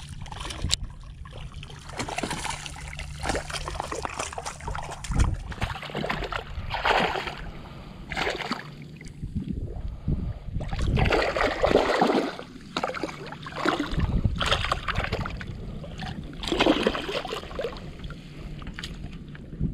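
Hooked speckled trout thrashing at the surface beside a kayak as it is played and netted, with repeated bursts of splashing and water sloshing.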